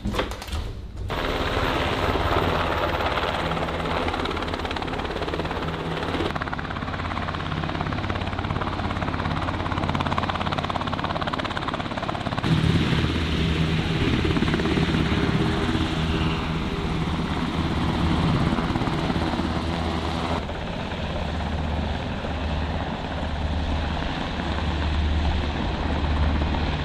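UH-60 Black Hawk helicopters, their rotors and twin turbine engines running steadily as they hover and fly. The sound changes abruptly to a different take several times.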